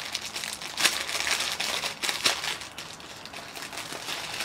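Plastic packaging crinkling and rustling as a pair of socks is worked free of it by hand, with two sharper crackles about one and two seconds in.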